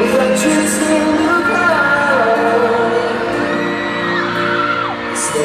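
Live pop band playing in a large arena, with held, gliding sung notes and fans screaming and whooping over the music, once shortly after the start and again near the end.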